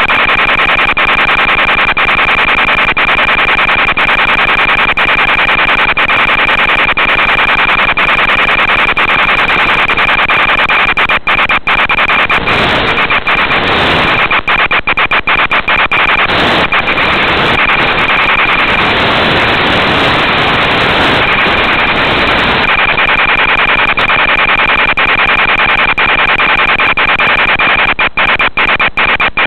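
Loud, steady radio static from an analog FPV video downlink's audio channel, with a constant thin high whine and many brief dropouts. It turns rougher, with more low rumble, from about twelve seconds in until about twenty-three seconds in.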